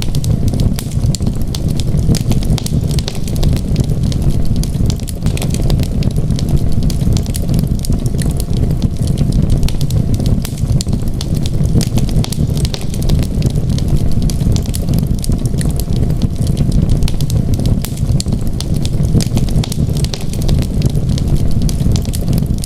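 Wood fire in a fireplace crackling, with frequent small irregular pops and snaps over a steady low rumble of the flames.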